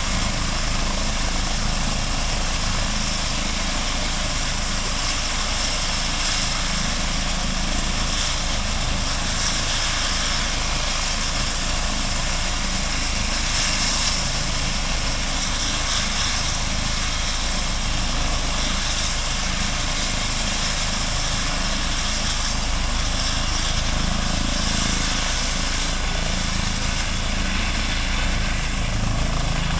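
Eurocopter EC135 twin-turbine helicopter running on the ground with its main rotor turning, before lift-off. A steady turbine whine and rotor beat.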